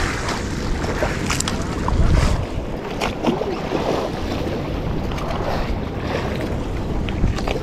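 Wind buffeting the microphone over choppy sea water splashing against a small outrigger canoe's hull, with a few light knocks and clicks.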